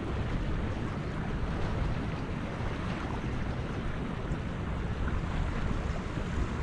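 Steady rushing of a flowing river, with wind buffeting the microphone in a low, uneven rumble.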